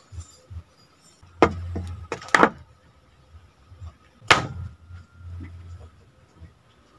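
Metal cooking pot full of rice turned upside down onto a wooden board, knocking and scraping against the wood: about four sharp knocks, the last and loudest some four seconds in, as the rice is loosened to turn out of the pot.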